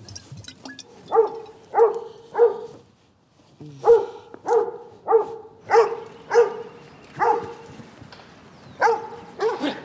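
A dog barking, about a dozen barks in three quick runs of roughly one and a half to two barks a second, with short pauses between the runs.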